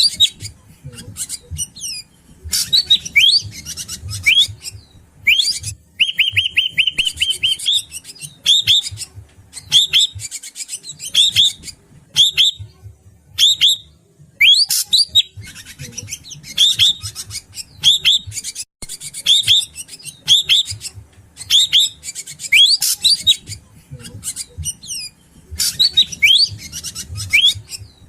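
Greater racket-tailed drongo (srigunting batu) calling over and over: a rapid run of varied rising and falling whistles mixed with harsh rasping notes, with a fast, even trill about six seconds in.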